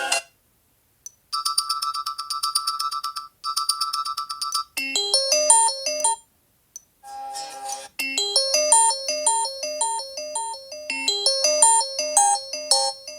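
Sony Xperia smartphone's speaker playing alarm tone previews one after another. About a second in, a fast electronic beeping alarm plays in two bursts. It is followed by a short melody, and from about seven seconds a bouncy melodic alarm tone loops.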